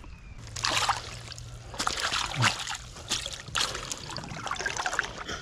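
Water splashing and sloshing in irregular bursts as a hooked smallmouth bass is netted in shallow creek water, the fish thrashing in a rubber-mesh landing net.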